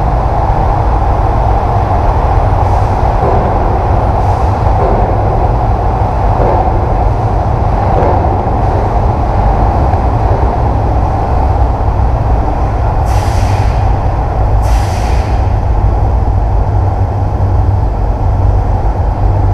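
Heavy wind buffeting on the microphone over a steady vehicle drone, with two short sharp hisses about a second and a half apart near the end.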